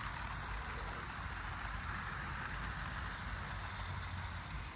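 OO gauge model freight train rolling past on outdoor track: a steady running hiss of wagon wheels on the rails, swelling a little mid-way and easing off near the end.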